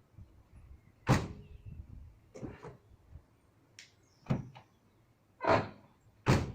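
A series of sharp knocks and clunks, five in all, at uneven intervals, the last two loudest.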